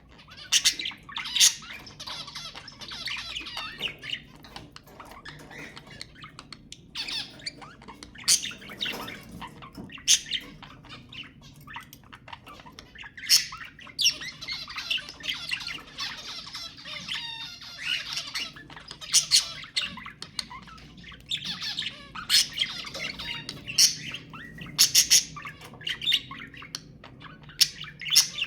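Budgerigars chattering and warbling continuously, with loud, sharp squawks standing out every few seconds.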